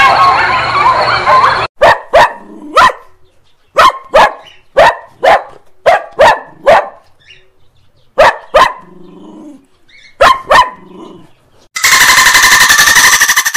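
Animal sound effects: a jumble of wavering animal cries at first, then a string of short, sharp barks, singly and in pairs. A loud, rapid rattling buzz cuts in near the end.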